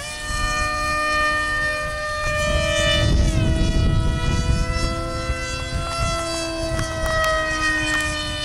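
Electric motors and propellers of small foam RC planes whining, several steady tones at once that shift in pitch as the throttles change, with wind rumbling on the microphone.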